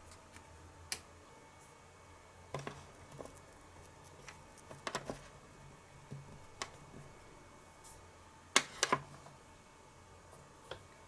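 Irregular light clicks and taps of small tools and pieces being handled in miniature cooking, the loudest few near the end.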